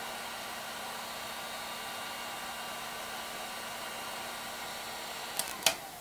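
Electric heat gun blowing steadily while it shrinks heat shrink tubing onto a charger cable, heard as a steady fan hiss with a faint motor whine. Near the end come two sharp clicks, and the blowing gets quieter after them.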